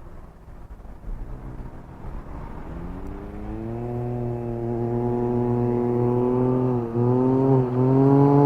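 2021 Can-Am Ryker Rally's three-cylinder engine running through an aftermarket Treal Performance exhaust. It rises in pitch as the trike accelerates and grows steadily louder as it approaches, with two brief dips in pitch near the end as the throttle eases and comes back on.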